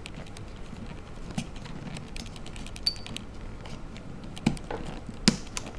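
Small clicks and taps of an iPhone 3GS motherboard being set into and slid along its plastic rear housing, with a few louder knocks near the end.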